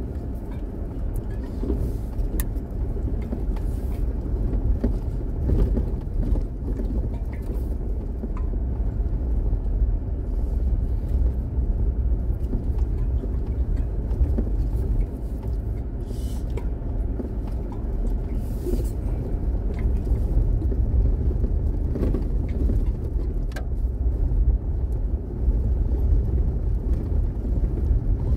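Steady low road noise of tyres rolling over a dirt road, with scattered small clicks and knocks throughout.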